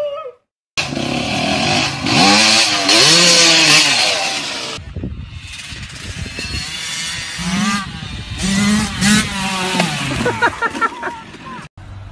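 Dirt bike engine revving up and down, loud and buzzy, in two stretches separated by a cut about five seconds in, after a short silent gap near the start.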